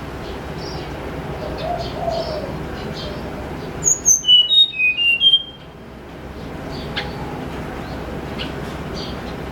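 A tledekan gunung sings a quick run of six or seven clear, high whistled notes about four seconds in, lasting about a second and a half. Faint chirps and a steady background hiss run underneath.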